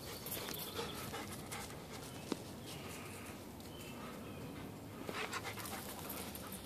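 Dog panting while trotting alongside, over footsteps scuffing and crunching through dry leaf litter and dirt on a trail. One sharp click sounds about two seconds in.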